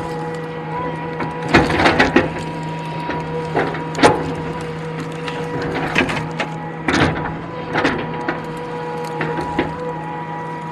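Excavator running steadily with a constant hydraulic whine, while a string of sharp knocks and cracks sounds from logs and branches being handled.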